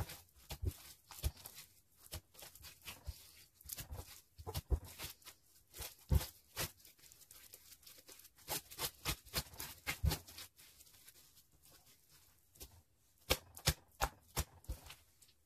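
Hands stretching, squishing and pressing pink textured slime: irregular sticky pops and crackles. There is a quieter stretch a little past the middle, then another run of pops near the end.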